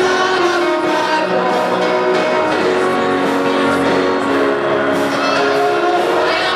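Gospel worship music with long held notes.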